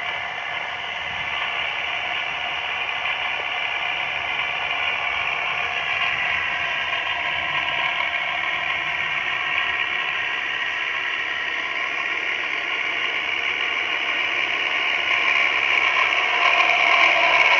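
Tractor working through wheat stubble, its engine and driven machinery giving a steady mechanical whine made of several even tones. It grows louder in the last few seconds as the tractor comes closer.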